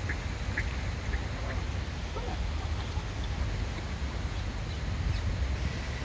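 Steady low rumble of wind buffeting the microphone, with a few short, faint duck quacks from the pond in the first couple of seconds.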